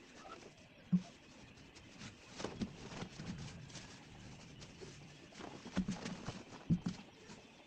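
Scattered light taps and clicks with a few sharper knocks, one about a second in and two near the end, while a dove coos low in the background.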